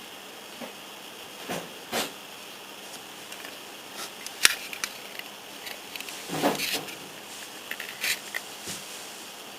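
Scattered light clicks and taps from a plastic model part and painting tools being handled while enamel paint is brushed on, with a longer scuffle about two-thirds of the way through, over a steady hiss.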